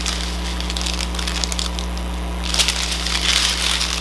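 Strip of small plastic bags of diamond-painting drills crinkling and rustling as they are handled, louder from about two and a half seconds in, over a steady low electrical hum.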